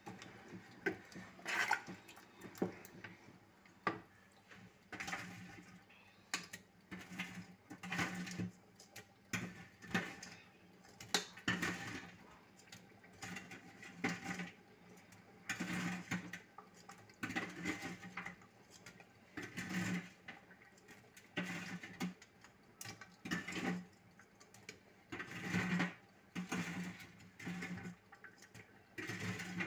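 Wooden spoon stirring thick stew in a metal pot: repeated scraping and squelching strokes, roughly one a second, with light knocks against the pot.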